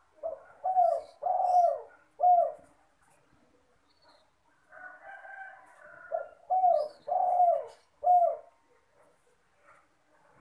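A spotted dove (derkuku/tekukur) cooing: two phrases of four coos, each coo falling in pitch, the middle ones longer than the first and last. A fainter, hoarser sound comes between the two phrases.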